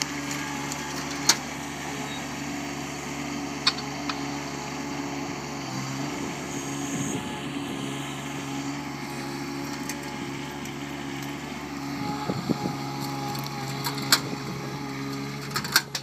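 Engine of a compact articulated wheel loader running steadily, with a few sharp knocks.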